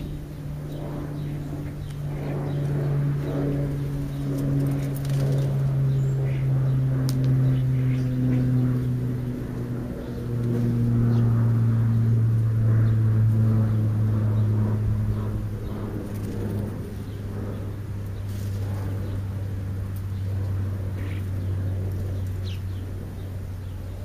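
A distant engine droning, its pitch falling slowly and steadily, loudest about halfway through.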